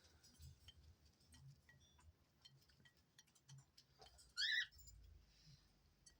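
Faint scattered light ticks and taps, then about four and a half seconds in one short, high-pitched bird chirp.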